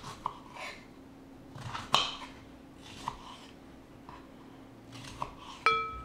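Kitchen knife slicing strawberries on a wooden cutting board: a few sharp knocks of the blade meeting the board, the loudest about two seconds in. Near the end, a clink against a ceramic bowl that rings briefly.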